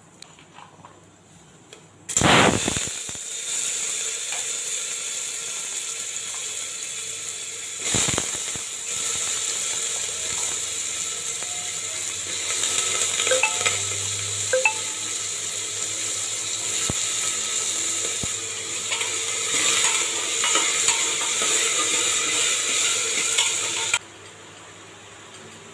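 Food sizzling in hot oil in a pan, starting suddenly about two seconds in with a loud burst as something goes into the oil, surging again about eight seconds in, with a few small pops, then stopping abruptly near the end.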